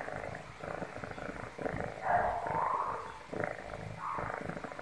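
Kitten purring close up, a steady buzz that swells and fades with each breath, loudest for about a second around two seconds in.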